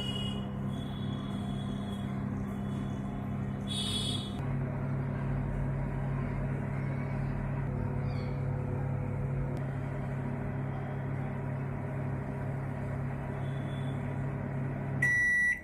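Microwave oven running at full power with a steady low hum, which stops near the end as the oven beeps to mark the end of the heating cycle.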